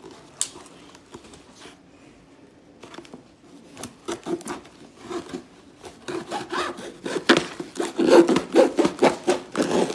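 Scissors cutting through a cardboard shipping box: short rasping strokes, scattered at first, then coming thick and loud over the second half.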